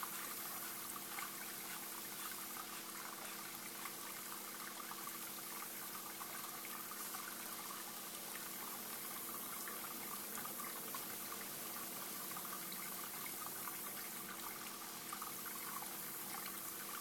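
Steady background noise like running or trickling water, with a faint steady hum underneath, unchanging throughout.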